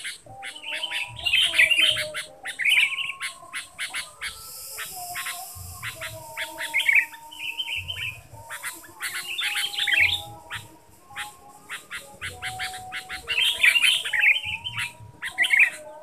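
Sooty-headed bulbuls calling: bursts of scratchy chattering repeated every second or two, about eight in all, over a quick run of sharp ticks.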